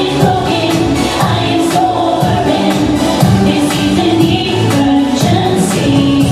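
Music: a song with sung vocals over a steady beat.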